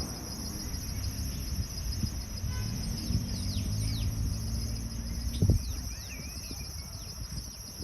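Urban outdoor ambience: a vehicle engine running low with a steady hum, a sharp thump about five and a half seconds in, and a scatter of short, falling high bird chirps over a constant high hiss.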